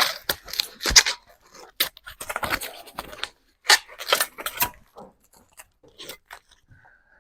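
Packaging being torn and crinkled off a new bike, in quick irregular rustles and crackles that thin out after about five seconds.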